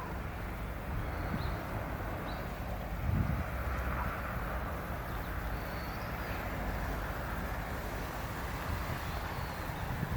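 Steady low outdoor rumble, with a few faint short high chirps now and then.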